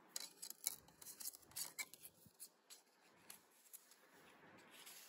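Faint rubbing and light clicks as a flashcard is handled and slid into the slot of a plastic talking-flashcard reader, most of them in the first three seconds.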